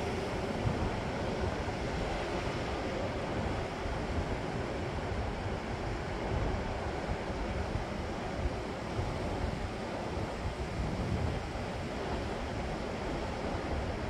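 Steady sea surf washing over coastal rocks, with wind rumbling on the microphone.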